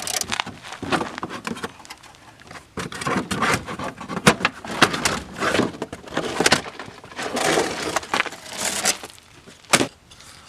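Irregular scraping and crunching of a person shifting about on dirt ground under a car, with several sharp clicks and knocks of handled tools or parts.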